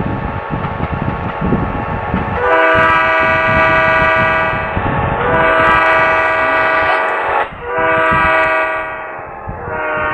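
Train horn sounding a chord of several notes at once, in four blasts with the third a little shorter, over the steady rumble of a running train.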